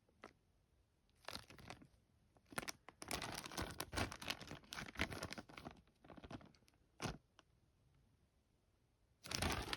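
Plastic parts bags crinkling and rustling as they are handled, in several bursts with quiet gaps between, the longest lasting a few seconds in the middle.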